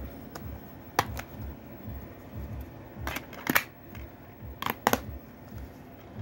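Sharp plastic clicks and snaps of a DVD keep case and disc being handled, as the disc is put into the case. There are two light clicks about a second in, a louder cluster around three and a half seconds, and another pair near five seconds.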